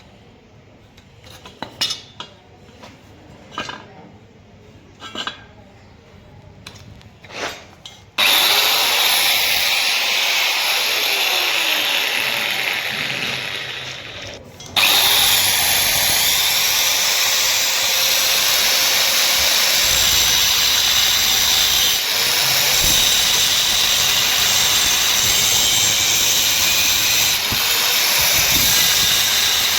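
A few sharp metal taps, then about eight seconds in a loud, steady rushing noise from metalworking on square steel pipe. It breaks off briefly near the middle and starts again.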